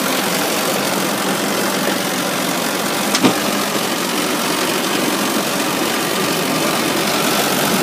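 Inboard engine of a wooden 1960s salon boat running steadily at low revs, with one sharp knock about three seconds in.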